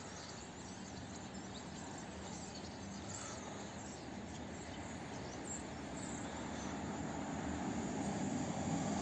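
Electric locomotive-hauled passenger train approaching from a distance: a low, even rumble that grows steadily louder.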